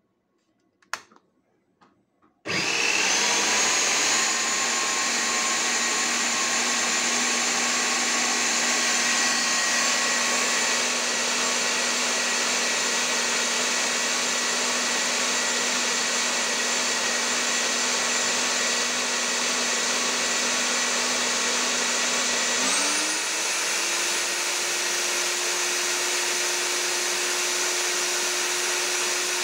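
Hilti DD-200 diamond core drill motor switched on with a click, then running steadily at a reduced low speed, its retrofitted low-speed drilling-in mode meant to spare the diamond core bit. About twenty seconds after starting, its pitch rises quickly as it steps up to full speed.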